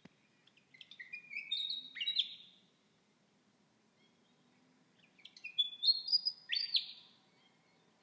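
A bird singing two phrases of clear whistled notes, each about two seconds long, the notes stepping up in pitch and each phrase ending in a quick sweep; the second phrase begins about four seconds after the first.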